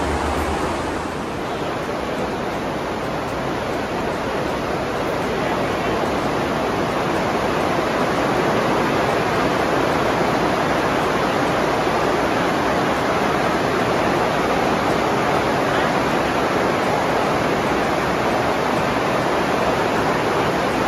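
Steady, even rushing noise, like running water.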